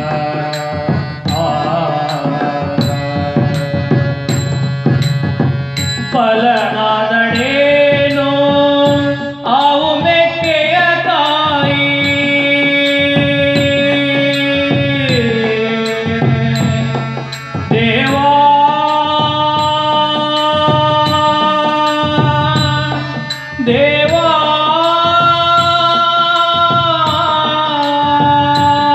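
Harmonium playing a sustained melody that moves to a new held note every few seconds, with a hand cymbal struck in a steady beat about one and a half times a second.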